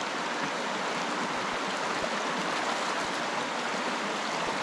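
Shallow, rocky creek water flowing steadily over stones in a riffle.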